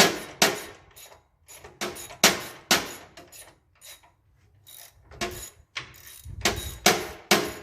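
Metal tools knocking against the steel parts of a Craftsman LT4000 lawn tractor during teardown: a series of sharp metallic strikes, irregular, about two a second, with a pause around four seconds in and a low rumble under the strikes near the end.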